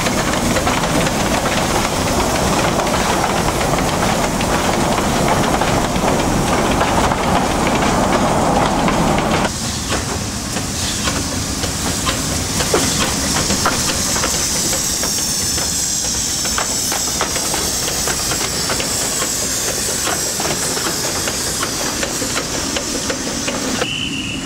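Narrow-gauge steam locomotive hissing steam loudly and steadily. About nine and a half seconds in, the sound cuts to a quieter hiss with scattered sharp clicks.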